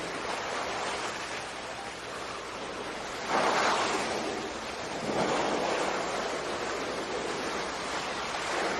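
Ocean surf: a steady wash of waves, with a louder surge about three seconds in and another about five seconds in.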